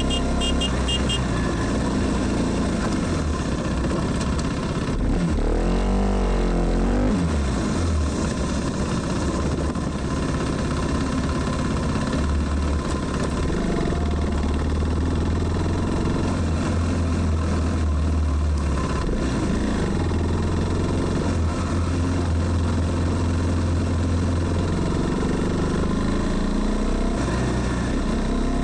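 KTM Duke 390's single-cylinder engine and exhaust running on the move. The note rises and falls with the throttle, with a quick up-and-down swing in revs about six seconds in.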